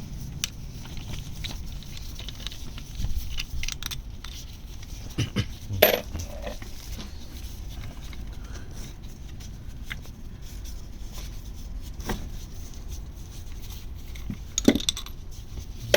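Scattered metallic clinks and taps of hand tools and small steel clutch parts being handled, as the clutch spring bolts are undone and the pressure plate is freed. Two clinks stand out, one about six seconds in and one near the end.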